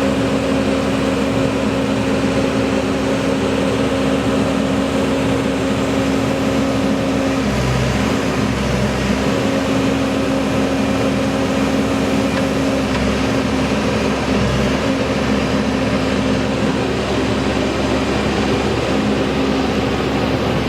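Case 580N backhoe's diesel engine running steadily, its note shifting for a second or two about eight seconds in before settling again.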